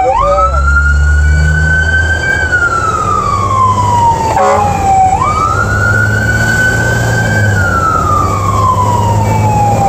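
Fire truck siren wailing, each cycle rising quickly and then sliding slowly down, about every five seconds, with the truck's engine running underneath, heard from inside the cab.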